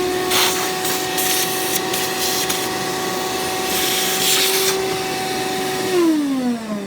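Shop vac motor running at a steady, high whine with a few brief hissing rushes of air as it sucks up loosened battery-terminal corrosion powder. It is switched off about six seconds in, its whine falling in pitch as the motor spins down.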